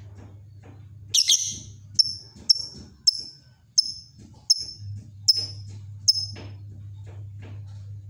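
Lovebird calling: one harsh call about a second in, then a run of short, high chirps about two a second until about six seconds in. A low steady hum lies underneath.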